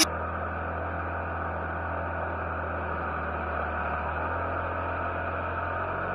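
Tractor diesel engine running steadily at a constant speed, a low even drone with no change in pitch.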